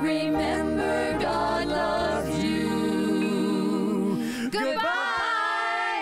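Several voices singing a children's goodbye song over light instrumental backing, closing on a long, wavering final note that stops at the end.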